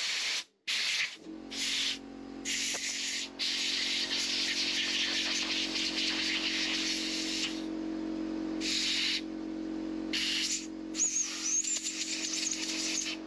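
Compressed-air blow gun hissing in short on-off blasts, with one long blast of about four seconds, as it blows grit and paraffin out of a miniature locomotive tender axlebox and its small oil passages. A steady low hum runs underneath from about a second in.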